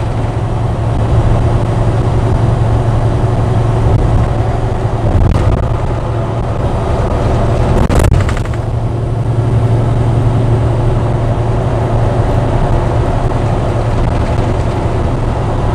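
Heavy truck's diesel engine and road noise heard inside the cab while driving: a loud, steady low drone. A couple of short knocks cut through it, the sharpest about eight seconds in, as the cab jolts.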